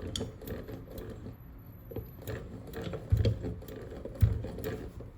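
Antique hand-cranked sewing machine running, a quick clattering of clicks from its mechanism, with two heavy thumps about three and four seconds in.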